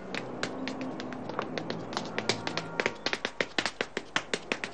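Hard-soled footsteps climbing stairs: sharp heel clicks, sparse at first, then quicker and louder, coming several a second in the second half.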